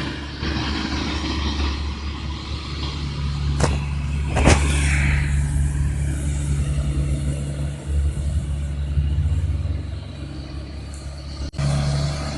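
Heavy diesel road-repair machinery running steadily, with two sharp metallic clanks about three and a half and four and a half seconds in.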